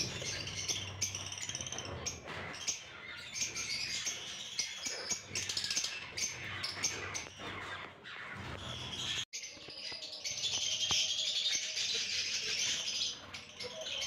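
A flock of albino red-eyed lovebirds chattering, a dense overlapping mix of short high chirps and squeaks that breaks off for an instant about nine seconds in.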